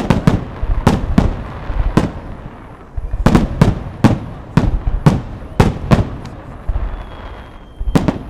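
Fireworks display: shells bursting in loud, sharp bangs, several a second in clusters, each with a short echoing tail. The bursts pause briefly about two seconds in and again about seven seconds in.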